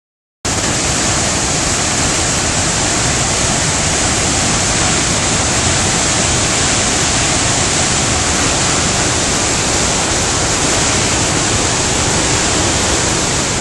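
A river in flood rushing through rapids: a loud, steady hiss of churning water that cuts in abruptly about half a second in.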